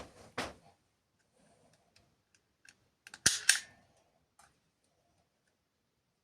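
Hand work on the wiring: scattered small clicks and ticks, with two loud sharp snaps in quick succession about three seconds in.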